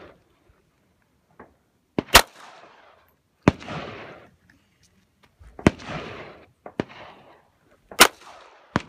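Pistol shots, about half a dozen sharp cracks at uneven intervals of one to two seconds, each followed by a fading echo; the loudest are about two seconds in and about eight seconds in.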